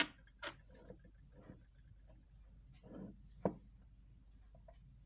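Faint, scattered clicks and light taps at uneven intervals, the loudest about half a second and three and a half seconds in, from a mechanical wristwatch and small watchmaker's tools being handled on a workbench.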